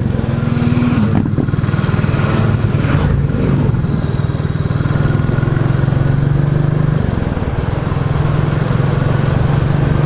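Royal Enfield Classic 350's single-cylinder engine running at a steady cruise through a Hitchcock's de-cat exhaust pipe, with wind noise over it.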